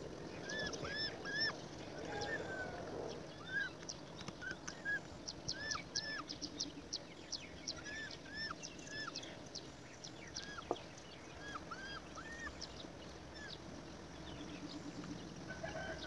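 Birds chirping: many short, arched chirps repeated at irregular intervals, with a quick run of sharp high ticks partway through.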